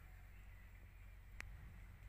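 Near silence: faint background with a steady low rumble and a single short click a little over halfway through.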